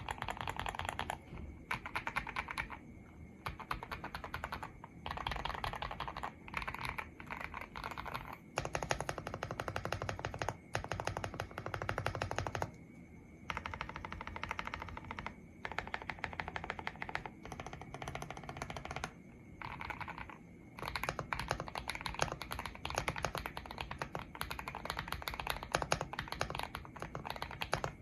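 Typing on a GMK67 mechanical keyboard with lubed KTT Kang White V4 linear switches on a polycarbonate plate, its case dampened with foam and tape mods, giving a very thocky and deep keystroke sound. The typing comes in fast runs broken by short pauses, with the fastest stretch near the middle.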